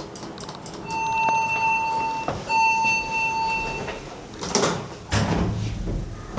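An elevator's electronic beeper sounds two steady high-pitched beeps of about a second and a half each, with a short gap between them. Near the end come a couple of clunks and a low rumble.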